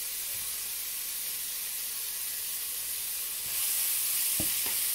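Sprouted mung beans sizzling in a frying pan: a steady high hiss that grows louder about three and a half seconds in as they are stirred with a wooden spatula, with two light knocks of the spatula against the pan near the end.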